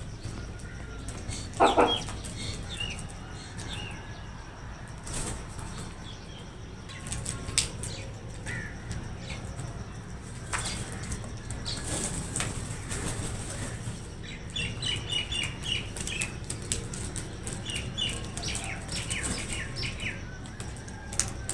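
Crows flapping their wings and scuffling over food, with scattered clicks and flutters. One loud, harsh caw comes about two seconds in.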